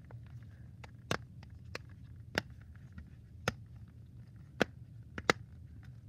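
Silicone pop-it fidget toy having its bubbles pressed one at a time: sharp, kind of loud pops about a second apart, two of them in quick succession near the end.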